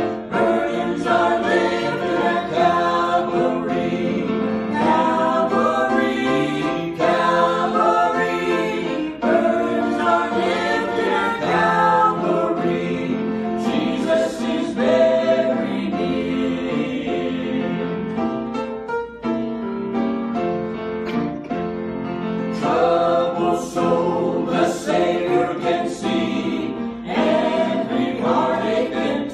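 Gospel vocal quartet of two women and two men singing a hymn in harmony, with a brief lull between phrases about two-thirds of the way through.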